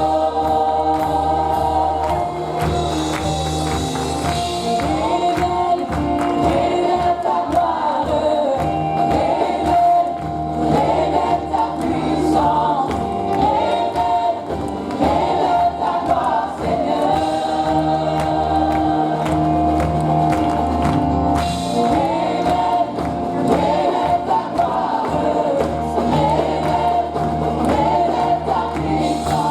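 Live gospel worship music: a congregation and choir singing over a band with bass and drums, and a tambourine.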